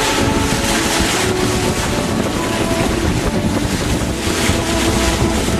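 Steady rush of sea water along the hull of a moving boat, with wind buffeting the microphone and a faint engine hum underneath.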